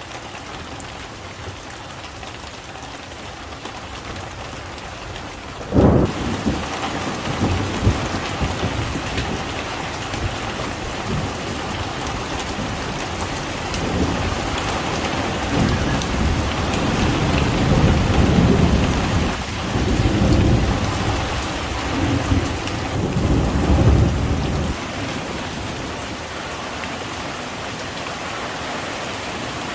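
Heavy rain pouring down. About six seconds in it suddenly grows much louder, and rolling thunder rumbles through the middle of the stretch.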